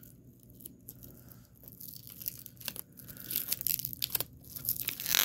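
Plastic wrap on a VHS tape being crinkled and torn by hand: irregular crackles that grow denser and louder toward the end, with one loud rip near the end.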